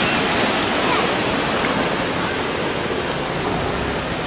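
Tsunami surge water rushing and churning through a marina channel, a steady rush of turbulent water.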